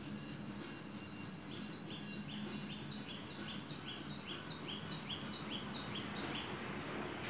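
A bird singing a quick run of short falling whistles, about three a second and alternating between two pitches. It starts about one and a half seconds in and stops near the end, over a steady background hiss and a low hum.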